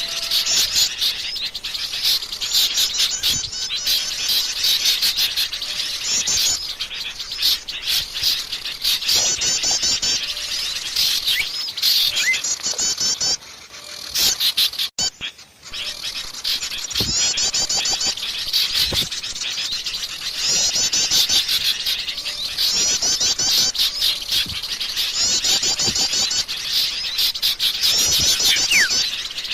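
Forest birds singing: a high, rapid trilling phrase of quickly repeated notes, lasting about a second and coming back every couple of seconds, over other chirps. The song cuts out briefly about halfway through.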